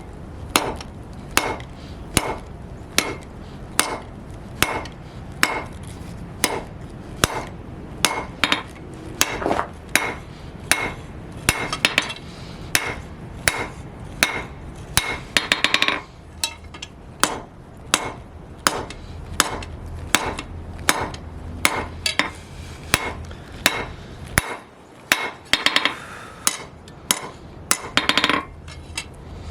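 Hand hammer forging steel flat bar on an anvil, each blow ringing, at a steady pace of a little over one blow a second, with quick runs of lighter blows near the middle and near the end. A steady low hum underneath stops about three-quarters of the way through.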